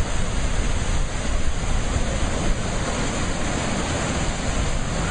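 Sea surf as a steady rushing noise, with wind rumbling on the microphone.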